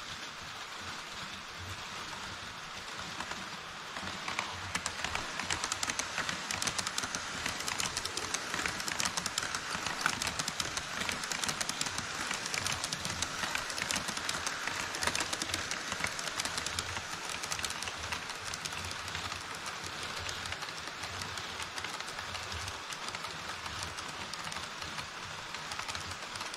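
HO-scale model trains rolling over a model truss bridge on KATO Unitrack: a steady, dense clatter of small wheels ticking over the rail joints. It grows louder about four seconds in as the trains cross and eases slightly in the second half.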